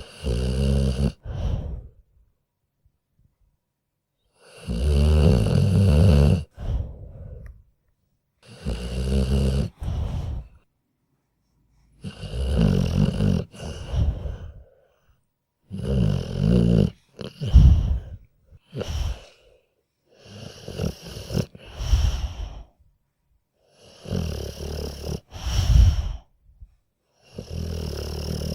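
A sleeping dog snoring in slow, regular, rattling breaths, about one every four seconds. Each snore comes in two parts, a longer rattle and a shorter one, with near silence between snores.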